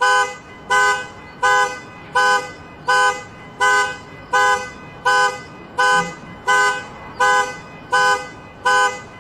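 Car alarm sounding the car's horn in short, evenly spaced honks, about thirteen of them at roughly one and a half a second.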